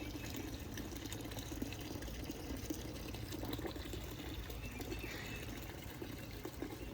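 Water trickling and splashing steadily into a garden pond.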